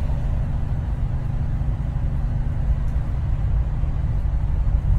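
Steady low rumble of a moving vehicle's engine and road noise, heard from inside the cabin.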